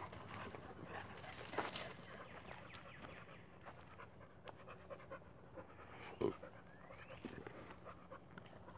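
A dog panting faintly close by, with light footfalls on a dirt trail and a short, sharper sound about six seconds in.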